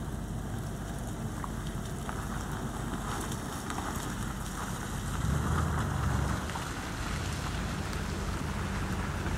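Steady rain falling, with a Chevrolet Spark hatchback driving off across wet ground, its tyres hissing on the wet surface. A louder low rumble comes about five seconds in and lasts about a second.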